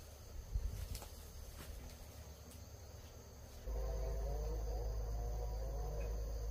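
Insects, crickets or cicadas, chirping in a steady high drone, with a few light taps in the first couple of seconds. About two-thirds of the way through, a low rumble starts suddenly and a wavering mid-pitched hum comes in over it.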